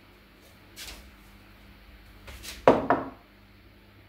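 Kitchen handling as miso is spooned into a food processor's plastic bowl: a soft rustle, then a sharp knock about two-thirds of the way through, with a smaller knock right after, over a faint steady hum.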